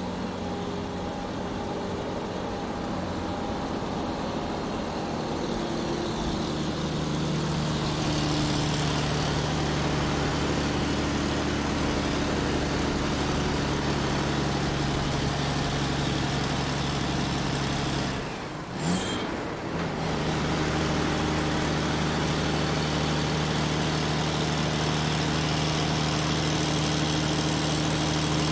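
Large truck's engine running steadily as it drives, its note stepping up in pitch about a quarter of the way in. About two-thirds through, the engine sound briefly drops away with a short sharp noise, then the steady running resumes.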